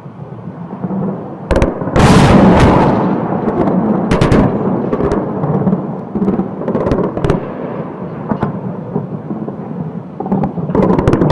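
Explosions from an aerial bombardment of a city, heard as a loud blast about two seconds in followed by a long rumble. Further sharp cracks break through the rumble, with a cluster of them near the end.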